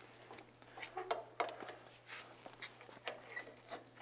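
Faint, scattered clicks and knocks of hands-on work on a steel tractor frame as it is pushed apart, over a steady low hum.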